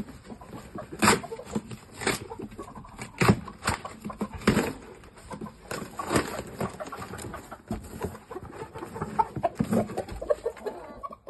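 Game fowl clucking, with irregular knocks and rustling scattered through.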